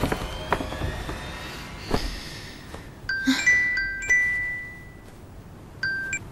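Mobile phone ringtone: a short melody of high chiming notes that starts about three seconds in and comes again near the end, over the fading tail of background music.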